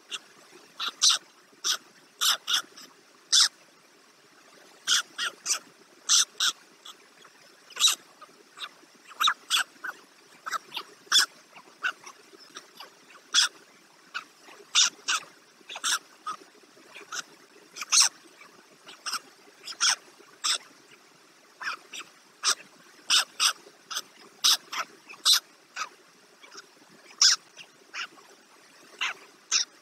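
An animal calling over and over: short, sharp calls, sometimes single and sometimes in quick pairs or runs, coming at uneven gaps. A faint steady hum lies underneath.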